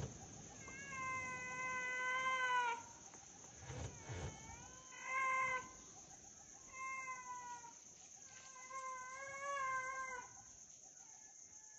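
Young sloth bear cub crying for its mother: four drawn-out, wavering wails. The first and last last about two seconds each, and the two in the middle are shorter.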